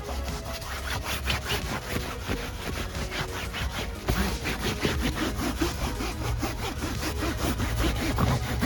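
Damp microfibre cloth scrubbed quickly back and forth over a fabric car seat, a rapid, even run of rubbing strokes as upholstery cleaner is worked into the cloth.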